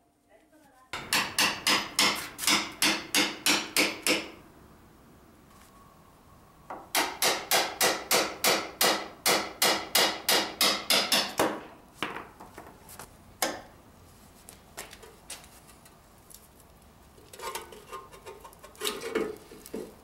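Hammer striking the steel chain case of a wing harrow to split it open. There are two runs of quick ringing blows, about three a second, then scattered lighter knocks and metal clatter near the end.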